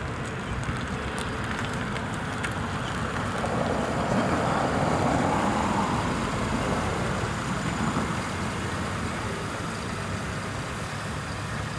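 Mercedes-Benz E-Class sedan rolling slowly up over rough asphalt: a steady rushing of tyres and engine that swells from about four seconds in as the car draws near, with wind on the microphone.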